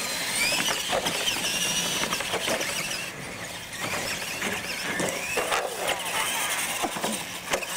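Radio-controlled monster trucks racing, their electric motors and geartrains whining and gliding up and down in pitch as they speed up and slow down, with several sharp knocks as the trucks hit the ramps and the concrete.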